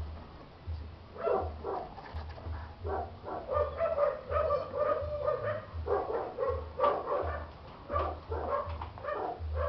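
Six-week-old chow chow puppy yelping and whimpering in a rapid string of short, high cries, starting about a second in.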